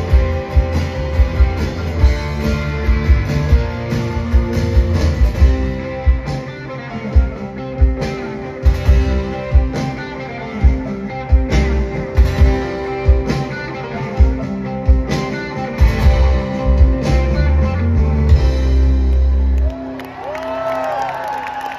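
Rock band playing live, the electric guitar leading over drums and bass in an instrumental section. About twenty seconds in the band stops sharply on a final hit. Ringing guitar and the first crowd cheers follow.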